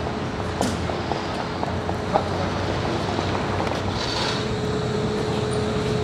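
Tokyo Metro 01 series subway train moving slowly on the depot track: a steady rumble with a few light clicks, and a steady hum that comes in about four seconds in.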